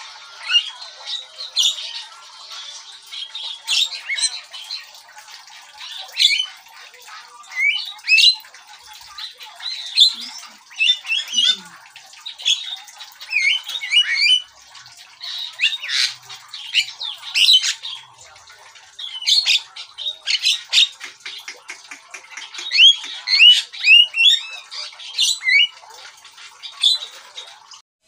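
Javan myna calling without pause in a rapid, varied run of harsh squawks, clicks and short whistled notes sliding up and down in pitch.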